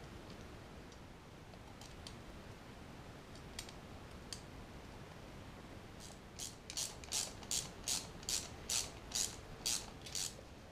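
Ratcheting screwdriver tightening the screws that hold an alternator's brush holder and voltage regulator. About six seconds in it starts a run of about ten short rasping ratchet strokes, two or three a second, after a few faint clicks as the part is seated.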